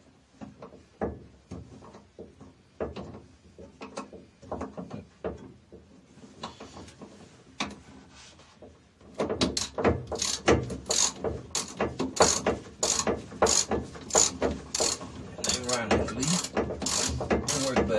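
Hand ratchet wrench clicking as a bolt on a brace bar is tightened: scattered clicks at first, then from about halfway a steady run of quick strokes, two or three a second.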